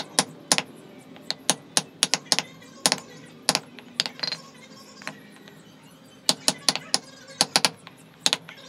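Wooden mallet knocking on a chisel that is cutting into a small wooden elephant carving: sharp knocks in irregular runs, some in quick pairs, with a short pause about two thirds of the way through.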